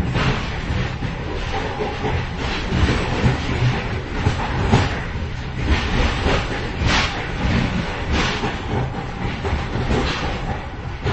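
Moving train heard from inside the vestibule between carriages: a steady low rumble with irregular clatter and knocks, several a second, and a faint steady tone.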